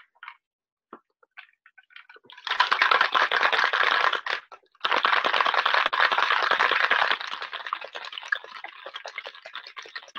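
Ice rattling hard in a metal cocktail shaker as a drink is shaken: a fast, dense rattle in two bouts with a short break between them, then quieter rattling near the end.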